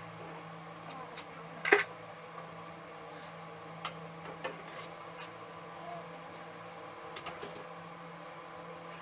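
Scattered clicks and knocks of parts and tools being handled while fitting a snowblower's auger back on, the loudest a sharp knock about two seconds in, over a steady hum.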